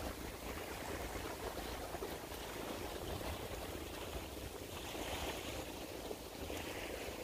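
Steady outdoor ambience at night: a low rumble and a soft even hiss, with no distinct event.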